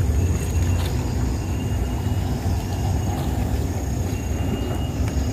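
Steady low rumble of outdoor ambience on a riverbank, with wind on the microphone over the wash of a wide, flowing river.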